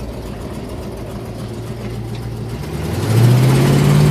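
1968 Plymouth Road Runner's V8 running steadily while driving slowly. About three seconds in, the engine note rises in pitch and gets louder as the car accelerates.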